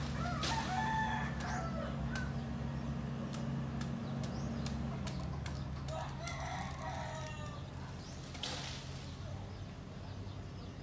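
Diesel engine of a JCB tracked excavator running steadily, its pitch dropping slightly about five seconds in. A rooster crows twice over it, about a second in and again about six seconds in.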